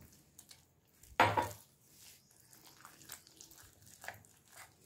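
Metal fork stirring and scraping a thick flour-and-water batter in a glass bowl, with faint scattered clicks against the glass and one louder clatter about a second in.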